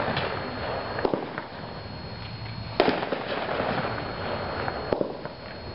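Multi-shot consumer firework cake firing: three sharp bangs about two seconds apart, with crackling in between.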